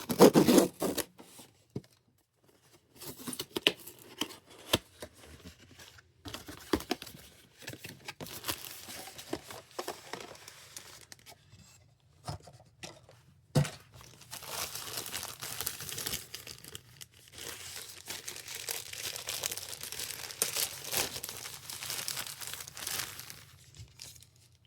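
Blind-box toy packaging being torn open and crinkled by hand: a loud burst right at the start, scattered crackles, then a long stretch of continuous crinkling in the second half.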